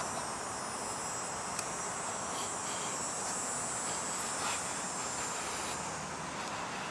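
Steady high-pitched chorus of cicadas buzzing, with a couple of faint clicks.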